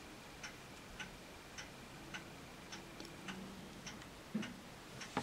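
Faint, steady ticking, just under two ticks a second, with a soft low thump about four seconds in.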